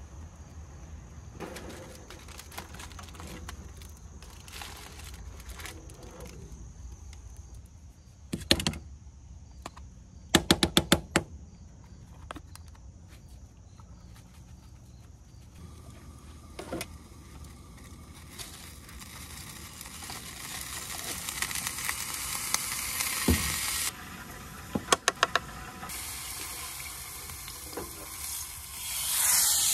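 Butter sizzling in a small pan on a propane camp stove, the sizzle building over the second half and swelling again near the end. Earlier there are a few sharp clicks and clatters, one quick cluster of them about ten seconds in.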